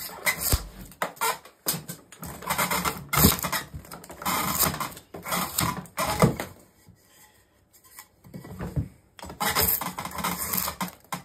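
Drawknife shaving a spruce leg blank on a shaving horse: a series of rasping cutting strokes, roughly one every second, with a pause of about two seconds past the middle.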